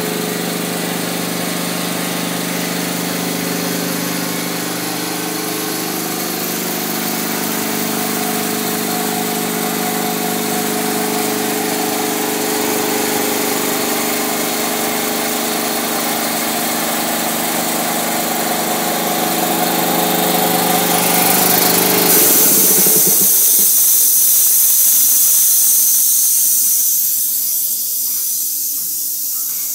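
Vertical-tank electric air compressor running steadily. About three quarters of the way through the motor shuts off and a loud hiss of air venting follows for several seconds, as when the pressure switch cuts out and the unloader valve bleeds the pump line. The hiss then fades to a faint one.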